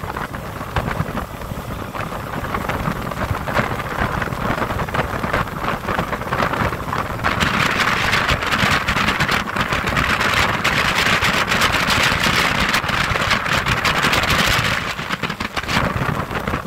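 Wind buffeting the phone's microphone on a motorboat running at speed, over the rumble of the boat's engine and hull on the water. The wind noise grows louder about halfway through and eases near the end.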